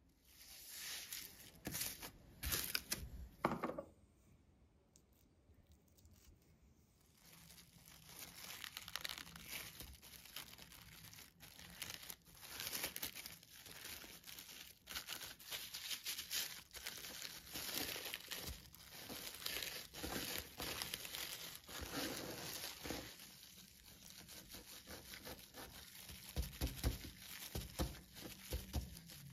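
A spatula scraping soft butter around a glass bowl in a few short strokes, then after a pause a long stretch of plastic cling film crinkling and rustling as it is wrapped, rolled and twisted around a log of herb butter, with a few soft knocks on the countertop near the end.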